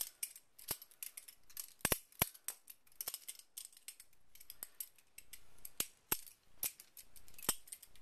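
Metal balisong (butterfly knife) being flipped through a trick: its handles and blade clacking together in sharp metallic clicks, about a dozen at uneven intervals.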